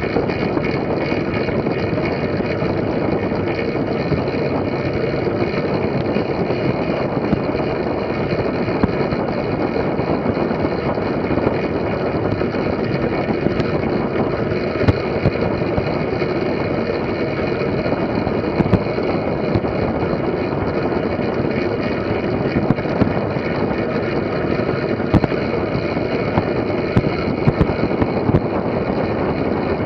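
Track bicycle riding fast around a velodrome: a steady rumble of the tyres on the track mixed with wind rushing over the bike-mounted camera, with scattered small clicks and knocks.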